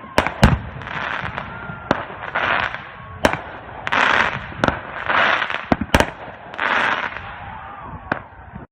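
Fireworks going off: about seven sharp bangs spaced a second or so apart, among repeated swells of hiss. The sound cuts off abruptly near the end.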